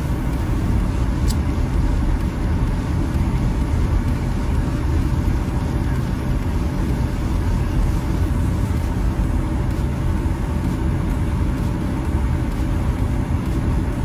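Road noise inside a moving car's cabin: a steady low rumble of tyres and engine, with a faint even hum above it.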